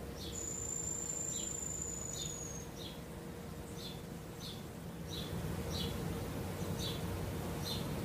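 Birds and insects calling in trees: a short high chirp repeats about every second, and a single long, thin, high whistle is held for about two seconds near the start.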